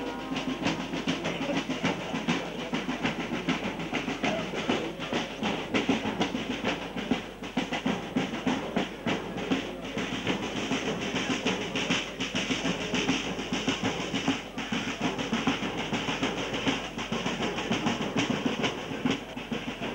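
Brass band playing, with trombones, tubas and horns over steady drumming.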